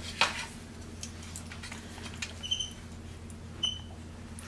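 Capuchin monkey giving two short, high squeaks, about two and a half and three and a half seconds in. A sharp tap comes near the start and a few light clicks follow as a spoon works in the oatmeal cup, all over a steady low hum.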